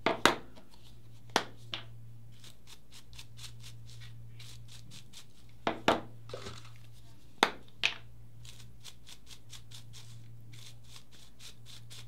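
Plastic ink-applicator bottles and their snap caps clicking and knocking against a wooden tabletop, a few sharp clicks mostly in quick pairs, over a steady low hum.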